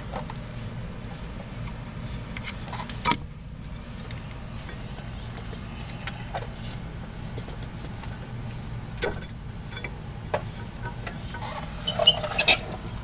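Scattered light clicks and knocks from hands handling a car's front strut and the wheel-speed-sensor wiring, with a quick run of sharper clicks near the end, over a steady low hum.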